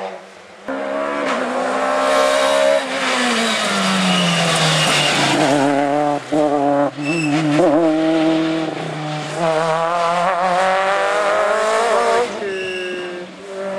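Rally car engines revving hard up a twisty hill road, the pitch rising and falling with throttle lifts and gear changes. Tyres squeal briefly a few times through the bends.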